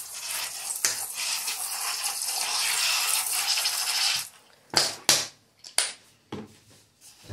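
Worcestershire sauce poured in a thin stream from a dasher-top bottle, trickling into a puddle of liquid seasoning in an aluminium baking tray: a steady hiss that stops abruptly about four seconds in. After it come four or five short, separate sounds as the bottle is handled.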